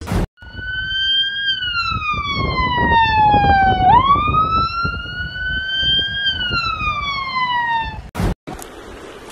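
A siren-like whistling tone that slides slowly down in pitch, sweeps quickly back up about four seconds in, and slides down again, over a low rumble.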